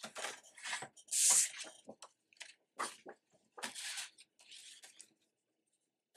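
Sheet of patterned paper rustling and scraping as it is slid and lined up on a paper trimmer, in short irregular bursts, the loudest about a second in.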